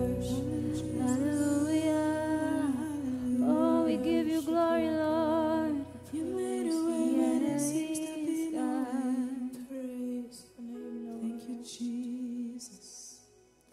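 Recorded worship music: a sung melody with wavering held notes over sustained low notes, which drop away about six seconds in. The music then thins and fades out near the end.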